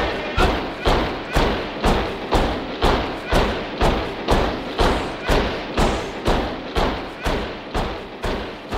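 Marching boots stamping in step, about two heavy thumps a second, evenly spaced.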